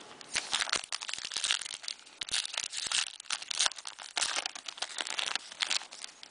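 2010 Panini Prestige football-card pack, its foil wrapper crinkling and tearing as it is opened by hand: a run of dense, irregular crackles that stops near the end.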